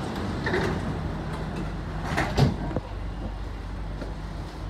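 Sliding passenger doors of an SMRT C151B (Kawasaki-Sifang) train closing, with a knock as they start and a loud thud as they meet about two and a half seconds in, over the steady low hum of the stopped train.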